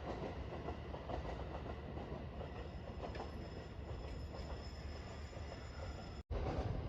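Train running past on the track, a steady rumble with faint wheel clatter over the rails. The sound cuts out abruptly for a split second near the end.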